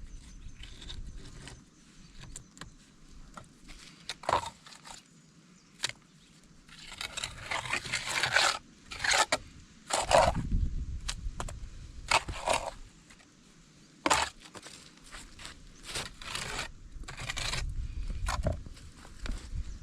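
A mason's trowel scraping and working cement mortar in irregular strokes, with occasional low rumbling.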